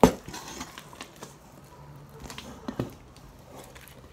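Sticky homemade slime being kneaded and pulled by hand, giving scattered small wet clicks and taps, with one sharp knock right at the start.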